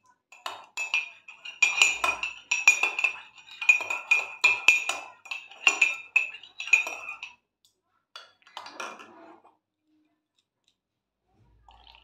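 Metal spoon stirring coffee in a ceramic cup, clinking rapidly against the cup's sides, which ring with each strike. The clinking stops about seven seconds in, followed by a shorter, softer scrape of the spoon.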